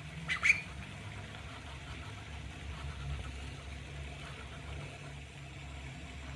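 A steady low mechanical hum like an engine running, with one brief sharp high-pitched squeak about half a second in.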